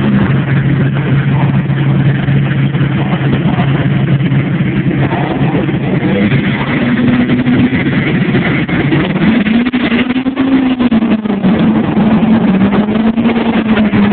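Diesel pickup truck engines idling at the drag strip start line, then launching and accelerating away down the strip, the engine pitch rising and falling from about nine seconds in.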